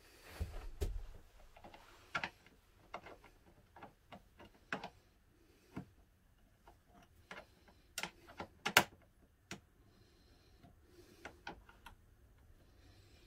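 Scattered light metallic clicks and taps as the end fitting of a cabinet-door gas strut is handled and fitted onto its mounting pin, with a soft low bump near the start; the sharpest clicks come about eight to nine seconds in.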